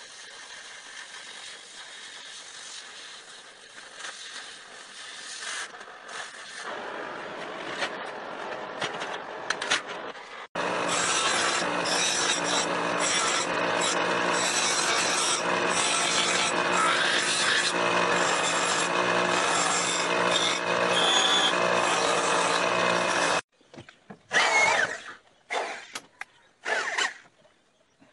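Oxy-fuel cutting torch hissing as it cuts a hinge piece from steel plate. About ten seconds in, a JET bench grinder runs loudly, grinding the steel piece for some thirteen seconds, then stops abruptly. Near the end, an electric drill spins up in several short bursts.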